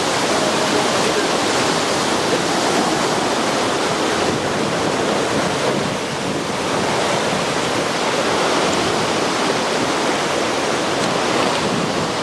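Heavy ocean surf breaking and churning against black lava rocks: a loud, steady rushing wash of white water that eases slightly around the middle.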